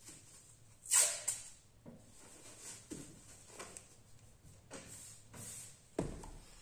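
Masking tape pulled off its roll with a short rasp about a second in, then softer rustling of plastic masking film being pressed onto a car's rear wing. A sharp thump near the end.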